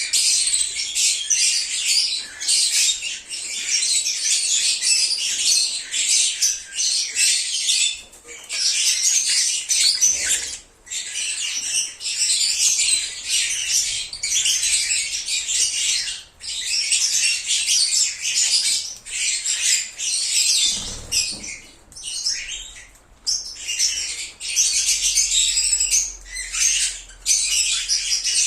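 Lovebirds (agapornis) chirping and squawking in a dense, continuous high-pitched chatter, with only brief pauses.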